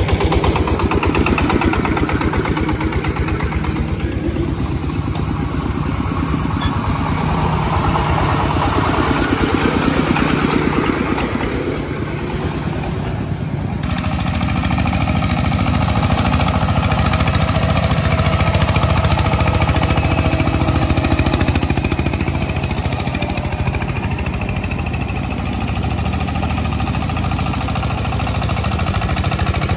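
Single-cylinder diesel engine of a homemade farm tractor running with a fast steady pulse, its revs rising and falling for several seconds. The sound changes abruptly about fourteen seconds in.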